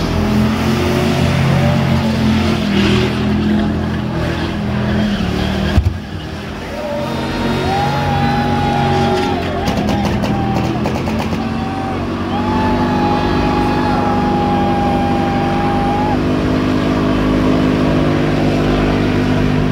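Dodge Ram pickup doing a burnout: the engine held at high revs while the spinning rear tyres squeal against the pavement in long, wavering tones. A sharp crack about six seconds in, after which the engine sound dips briefly before building again.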